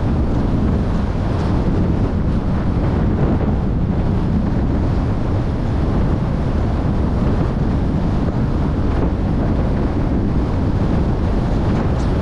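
Steady low rumble of wind and road noise from a car driving along, the wind buffeting the microphone.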